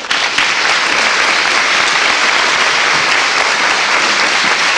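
Audience applauding: a round of clapping that starts suddenly and holds steady.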